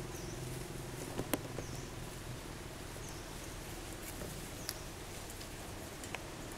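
Outdoor ambience: a low engine hum fades out in the first two seconds or so, faint high chirps repeat about every second and a half, and a few sharp clicks stand out.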